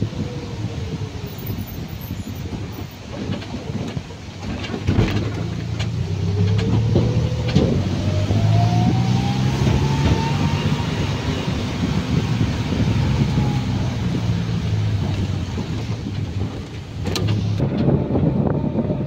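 Vehicle engine and road noise heard from inside a moving vehicle. The engine's whine climbs in pitch through the middle and then eases back down, and there are a few sharp knocks from bumps.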